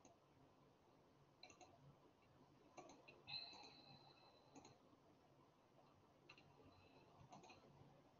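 Near silence, with a few faint clicks spread through it.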